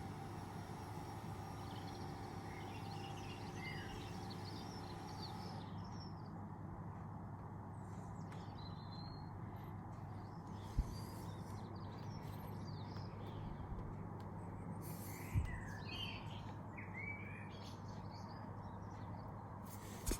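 Birds chirping and calling on and off over a faint, steady low background hum, with two short soft knocks, one about halfway through and another a few seconds later.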